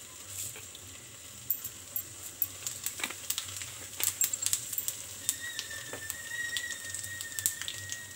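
Cumin seeds sizzling in hot oil in a frying pan with bay leaves, the oil crackling with irregular sharp pops that grow busier about halfway through. A faint thin whistle-like tone sounds in the background over the last few seconds.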